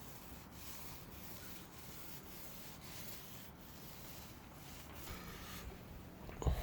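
Soft, steady rubbing as resin is worked into fiberglass mat laid over the transom wood, wetting it out, with a slightly louder stretch about five seconds in and a short thump near the end.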